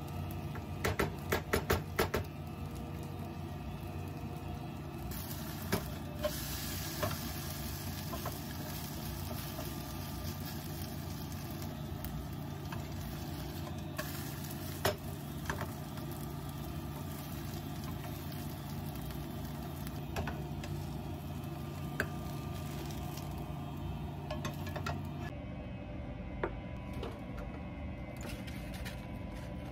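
Food sizzling in a pan, with sharp clicks and taps of a utensil, a quick cluster of them near the start. The sizzle and a steady low hum cut off together a few seconds before the end.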